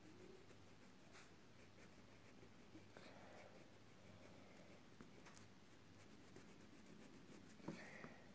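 Faint scratching of a red oil pastel scribbled back and forth on sketchbook paper, colouring in a shape, with a brief louder click near the end.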